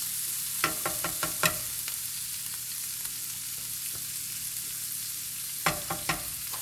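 Shrimp and rice sizzling steadily in hot oil in a frying pan. A cooking utensil clicks and scrapes against the pan in two short bursts, early on and again near the end.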